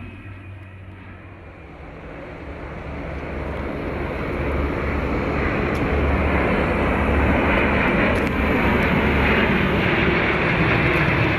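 Military aircraft engine noise, quiet at first, then growing steadily louder over a few seconds as the plane approaches, and holding loud as it passes close.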